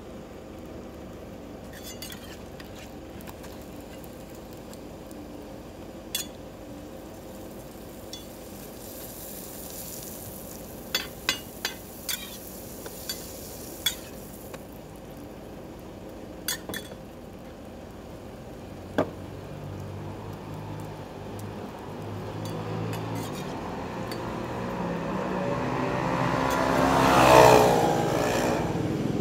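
Roti frying and sizzling on a flat griddle, with sharp clicks of a metal spatula tapping and scraping the pan. Near the end a motorcycle passes close by, building to the loudest point and then fading.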